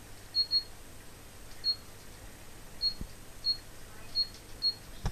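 Seven short, high-pitched beeps at irregular intervals over a low steady hum, with a soft low thump about three seconds in.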